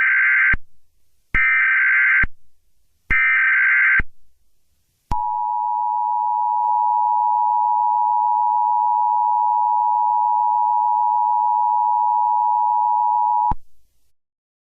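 Emergency Alert System broadcast tones: three bursts of SAME digital header data tones, about a second each, then the two-tone EAS attention signal (853 and 960 Hz together), held for about eight seconds and then cut off abruptly. The sequence signals that an emergency alert message is about to follow.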